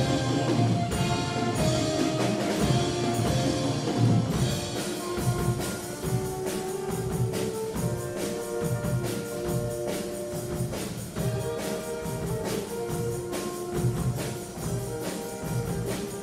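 Small wind band of saxophones and brass playing with a drum kit keeping a steady beat. About four seconds in the busy cymbal-heavy sound thins, leaving held wind chords over the beat.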